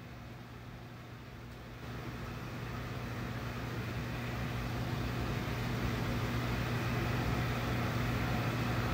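Steady hum and rushing air of a room air conditioner, growing gradually louder from about two seconds in.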